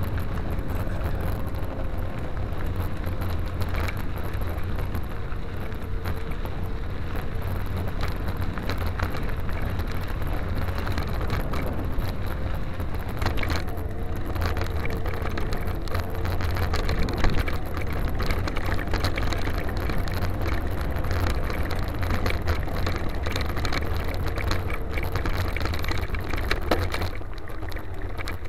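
Mountain bike rolling over a gravel trail: tyres crunching on grit and the bike and camera rattling over bumps, with a steady low rumble of wind on the microphone. There is a louder clatter about 17 seconds in.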